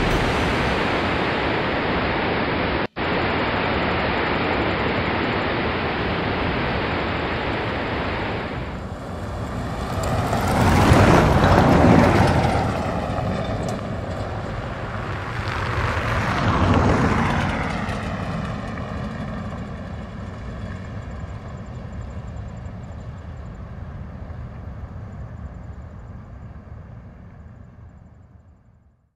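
Motor traffic passing on a road: a steady rush, then two vehicles swelling past about 11 and 17 seconds in with a sweeping whoosh, the sound then fading away.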